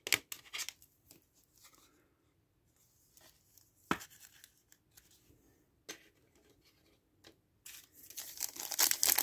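Faint handling with a few light plastic clicks as a sleeved card is worked into a rigid top loader, then, near the end, loud crinkling and tearing as a Bowman University Chrome trading-card pack wrapper is ripped open.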